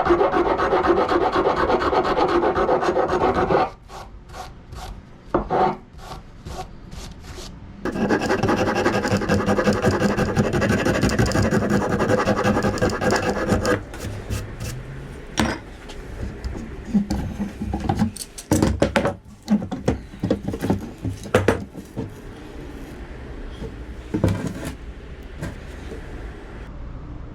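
Hand file rasping the wooden handle of a Husqvarna axe in fast, continuous strokes, shaping a grip. It stops after a few seconds, leaving scattered taps, then starts again for several seconds. In the second half it gives way to quieter, irregular knocks and scrapes.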